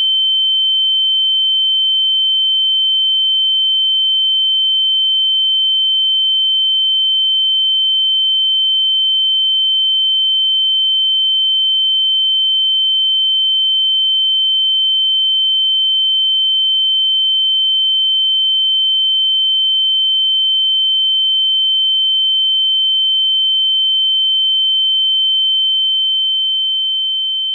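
A single steady, high-pitched pure tone: an ear-ringing sound effect imitating the ringing in the ears after a blow to the head. It starts to fade out near the end.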